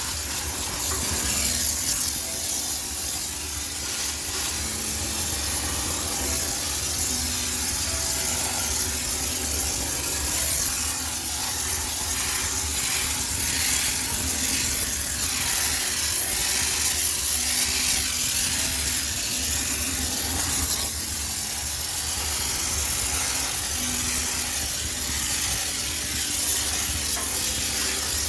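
High-pressure steam cleaner hissing steadily as it jets steam into a washing machine to sterilize it.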